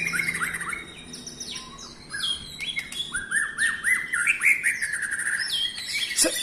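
White-rumped shama (murai batu) singing a rapid, varied run of whistled phrases with quick rising and falling notes, without a break. A short knock sounds near the end.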